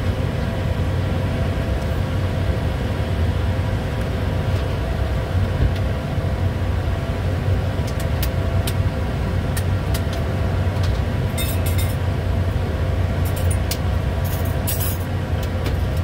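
Steady in-flight cockpit noise of a Bombardier Challenger 350 business jet: a low rumble of airflow and engines with a few steady hums over it. Faint brief clicks come and go in the second half.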